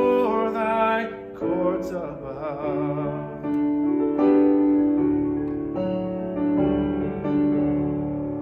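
Grand piano playing the closing chords of a hymn accompaniment, the chords changing every second or so. The last chord is held and fades away near the end.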